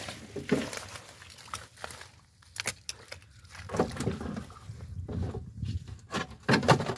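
Fish flapping and splashing in shallow mud as they are grabbed by hand, irregular wet slaps and knocks, with a couple of louder thumps as fish go into a plastic jug.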